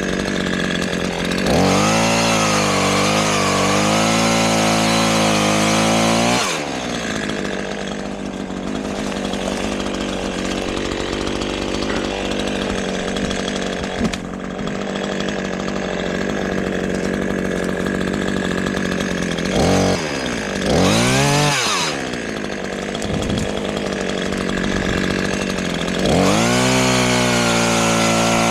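Chainsaw cutting sassafras windfall wood. It idles, then revs up and runs at high speed with a wavering pitch for about five seconds before dropping back to idle. It idles for a long stretch, gives a short rev blip, then revs up again near the end.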